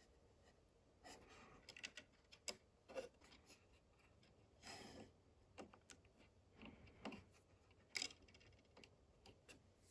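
Faint, irregular small clicks and taps of thin wire and small 3D-printed plastic parts being handled and pressed into place in a model engine bay, with a short rustle near the middle.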